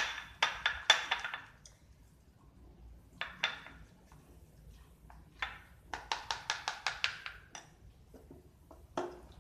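A spoon clicking against a ceramic bowl as thick slime mixture is stirred hard. The clicks come in quick runs with short pauses between, the fastest run a little past the middle at about six clicks a second.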